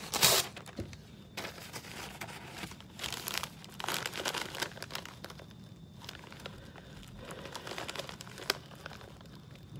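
Plastic snack bag crinkling and rustling in irregular bursts as it is handled and pulled open, with a sharp loud rustle at the start.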